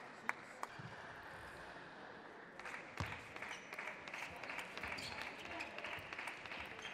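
Table tennis ball clicking sharply off bats and table during a rally, over a steady murmur of crowd chatter that grows louder a little under three seconds in; a few lone ball taps come before it.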